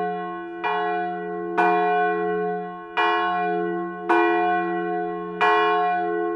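Church bell tolling, struck five times about a second apart, each stroke ringing on into the next.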